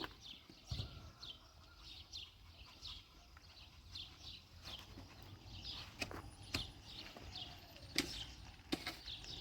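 A small bird chirping over and over in short, falling chirps, about two a second, with a few sharp knocks now and then.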